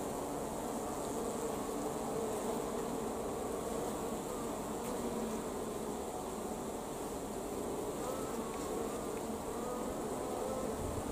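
A mass of honeybees on an open brood frame buzzing in a steady hum, centred low around a mid-low pitch with faint wavering tones, with no breaks.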